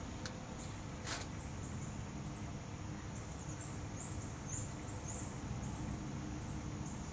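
Quiet outdoor ambience: a low steady background rumble with faint, short, high-pitched chirps repeating throughout, and one light click about a second in.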